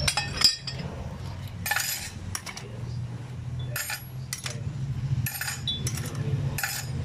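Motorcycle clutch steel plates and friction discs clinking against each other as they are handled, a scattered series of light metallic clinks about every second, over a steady low hum.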